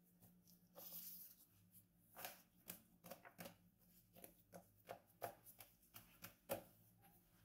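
Gloved hands patting and pressing croissant dough flat on a floured wooden board: a faint run of soft pats at irregular spacing, about a dozen, the sharpest near the end.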